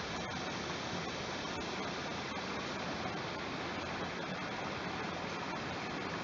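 Waterfall: water falling and splashing in a steady, even rush.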